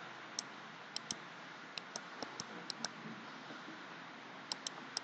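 Computer mouse clicking, about a dozen sharp clicks, several in quick pairs, with a pause of about a second and a half before a last few clicks near the end, over faint steady microphone hiss.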